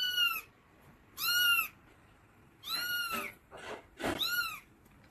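A kitten mewing: five high-pitched calls of about half a second each, every one rising and then falling in pitch, with short pauses between.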